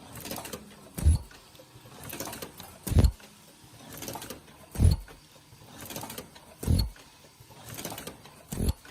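Ultrasonic ear-loop mask welding machine running its automatic cycle: a softer mechanical swell, then a heavy low thump, repeating about every two seconds, five thumps in all.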